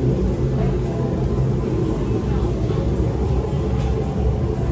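Steady low rumble of ambient noise with background music and faint voices mixed in.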